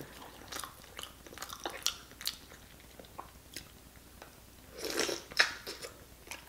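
Close-miked wet chewing and lip-smacking of sauce-soaked boiled potato: soft, scattered mouth clicks, with a louder wet smack about five seconds in.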